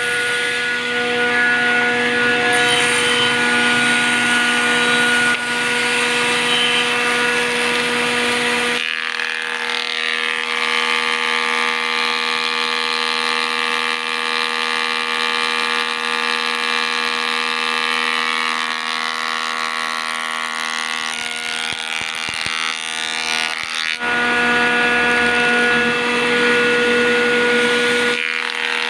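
Woodworking machine's rotating side cutter head running steadily with a hum of several fixed tones while curved wooden pieces are shaped against it. The sound changes abruptly about nine seconds in and switches back near the end.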